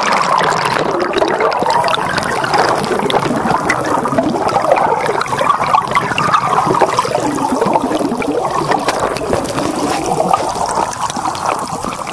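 Water gurgling and churning around a phone's microphone held underwater, heard muffled and steady.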